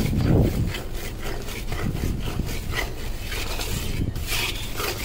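Flat metal spatula scraping and stirring crystallising sugar syrup around a hammered metal kadhai: a continuous run of rasping strokes. The syrup is being turned into grainy khand (granulated sugar) as it cools.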